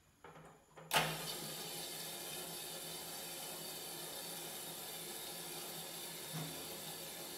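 The Kaldi Mini roaster's small drum motor starts with a low steady hum. About a second in, the Iwatani 35FW butane stove lights with a sharp ignition snap and settles into a steady gas-flame hiss under the drum.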